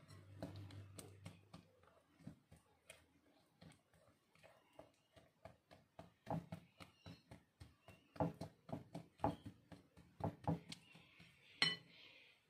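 Silicone spatula stirring and mashing banana in a glass mixing bowl: a run of soft scrapes and dull knocks a few times a second, busier in the second half, with one sharp clink of the spatula against the glass near the end.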